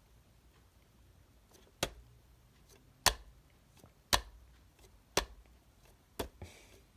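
Sharp, regular clicks, about one a second, starting a little under two seconds in.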